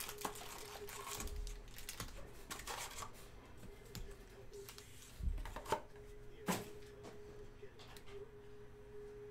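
Foil-wrapped trading card packs rustling and clicking as they are lifted out of a cardboard hobby box and set down in stacks on a table, with a couple of dull thuds as they land and a few sharper clicks.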